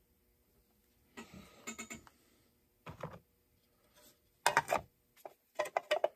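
Short bursts of light clicking and clattering, about a second in, around three seconds, and loudest a little past four and a half seconds: a chainsaw muffler and small parts being handled and set down on a workbench.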